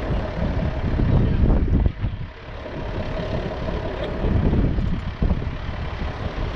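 A heavy vehicle engine idling steadily, with wind rumbling on the microphone; the wind eases briefly about two seconds in.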